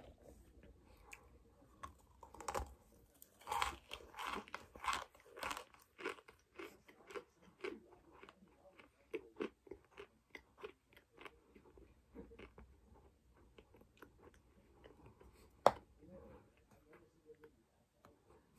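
Crunching chews of compacted cornstarch chunks, at their densest a few seconds in, then thinning to slower, sparser crunches. Near the end there is one sharp snap, the loudest moment.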